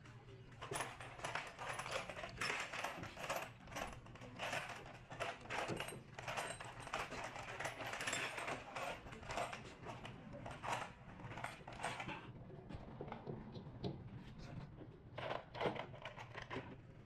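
Metal hand tools and small engine parts clinking, tapping and clicking in quick, irregular strokes, easing off after about twelve seconds and picking up again near the end, over a steady low hum.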